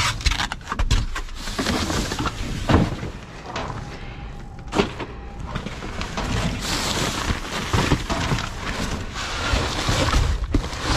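Cardboard boxes, plastic bags and styrofoam being shifted about by hand in a dumpster: continuous rustling and crinkling, with scattered knocks, the sharpest about three seconds in, near five seconds and near the end.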